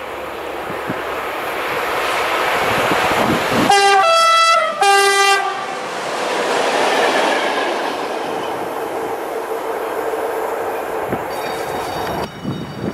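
Freight train passing at speed, its locomotive sounding a two-tone horn in two loud blasts about four seconds in, with the rumble and clatter of wheels on rail building up before and running on after.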